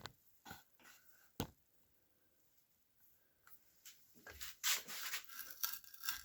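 Wood being handled: a few light knocks in the first second and a half, then from about four seconds in a dry rubbing and scraping of wood on wood.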